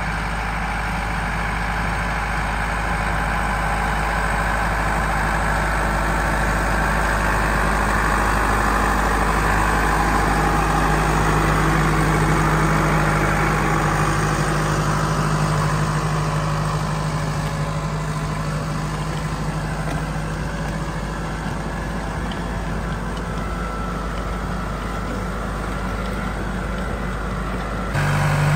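New Holland Ford 7740 tractor's diesel engine running steadily under load while pulling a four-furrow plough. It grows louder as the tractor comes close around the middle, then eases off, with a sudden jump in level near the end.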